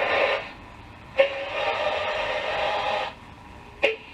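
Pilot T510 radio's speaker playing the AM broadcast band as it is tuned across stations. A click about a second in, then about two seconds of a steady whistling tone over noise, then another sharp click near the end.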